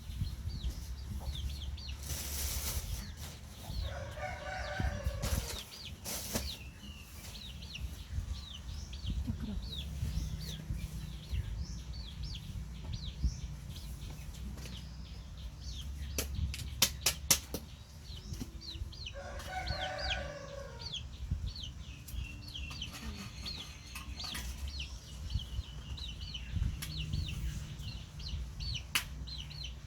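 Birds calling: many short high chirps throughout, with two longer, lower calls, one about four seconds in and one about nineteen seconds in. A quick run of clicks comes around sixteen seconds.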